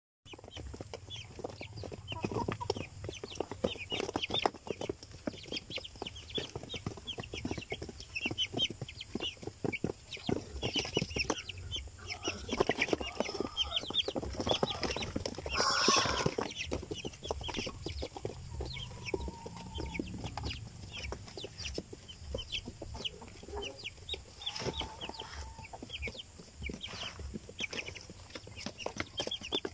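Young Rhode Island Red chicks, about five weeks old, peeping and clucking without pause, a steady stream of short high calls. About halfway through there is a brief louder burst of noise.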